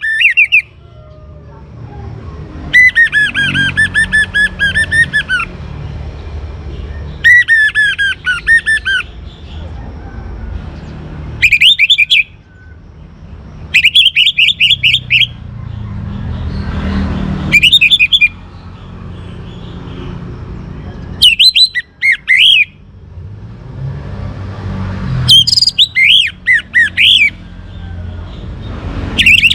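Young orange-headed thrush singing loudly: short phrases of rapid, high trilled notes, a phrase every two to four seconds, over a low steady rumble.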